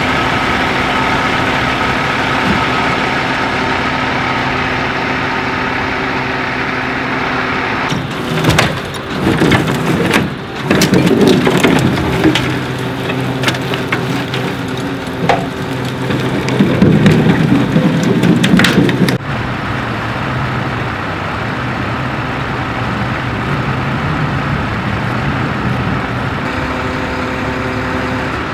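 Flatbed recovery truck's diesel engine running steadily. From about eight seconds in to about nineteen seconds in, cracking, scraping and crunching come over it as the burnt-out car is pulled up onto the tilted steel bed.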